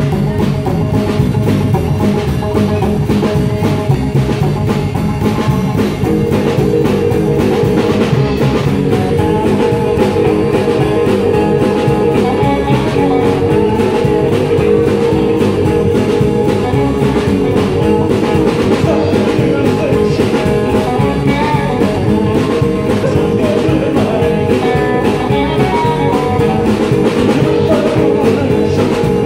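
Live rock 'n' roll band playing: slapped-style upright double bass, hollow-body electric guitar and drum kit, in a steady, continuous groove.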